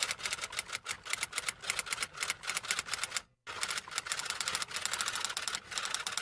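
Typewriter keys clacking in rapid succession, with a short break about three and a half seconds in before the typing resumes.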